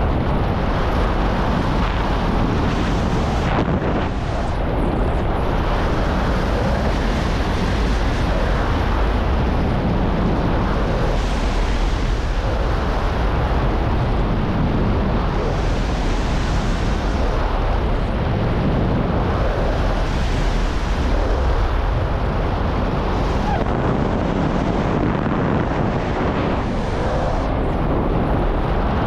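Loud, steady wind rush buffeting the camera microphone as a speedflying wing flies fast and low down a mountain gully: the noise of the airflow at flight speed.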